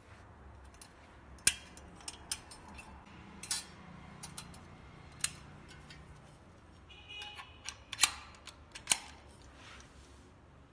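Stainless-steel wire rolling grill basket and its metal handle being handled: a series of sharp metal clicks and clinks as the handle is fitted to the cage's end bracket, with a brief squeaky metal-on-metal rub near the end.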